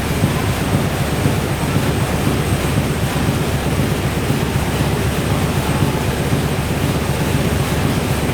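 Fairbanks-Morse two-cylinder diesel engine driving a generator, running steadily with a rapid, regular low beat from its firing strokes.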